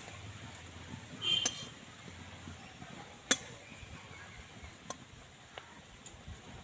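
A spatula knocking and clinking against a metal karahi while turning biscuits frying in oil. There are a handful of sharp clinks, the loudest about three seconds in, over faint, steady frying.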